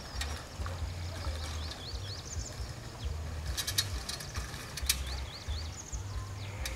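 Birds chirping in many short, quick notes that rise and fall, over low wind rumble on the microphone, with a few sharp clicks around the middle.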